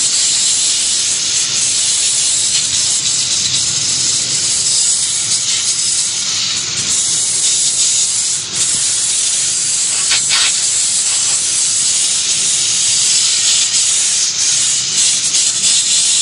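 Garden hose pistol-grip spray nozzle jetting water onto the metal body of a compressor: a steady hiss of spray, rinsing off coil cleaner and loosened grease. It dips briefly about eight seconds in.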